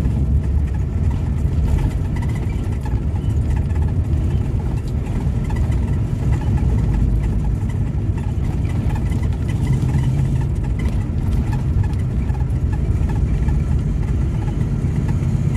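Semi-truck's diesel engine and road noise heard from inside the cab while cruising on the highway: a steady, deep running sound.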